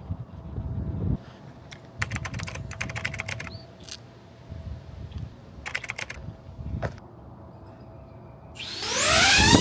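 Handling noise with several short runs of sharp clicks and rattles, like small parts being worked by hand. Music with sweeping tones comes in near the end.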